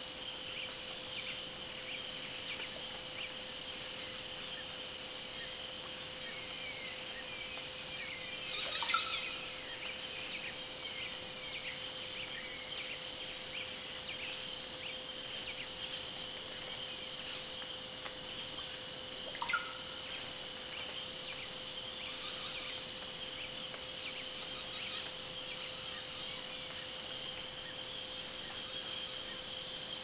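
Amazon rainforest insect chorus: a dense, steady high shrill over a steady low tone. Birds twitter with short falling chirps, and twice a louder short bird call stands out, about a third and two-thirds of the way through.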